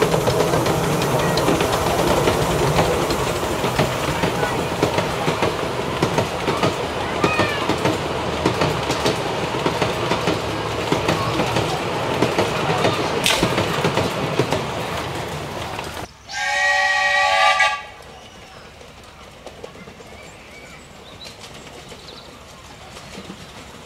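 Miniature steam locomotive and its passenger cars running over the track with a dense, steady rattle and clatter of wheels. After a cut, a locomotive whistle blows once for about a second and a half, then the train runs much more quietly with faint clicks from the track.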